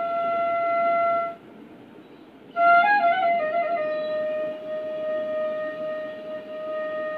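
Solo bansuri, the Indian side-blown flute, playing a slow melody. A long held note breaks off a little over a second in; after a pause of about a second, a short run of notes steps down into another long held note.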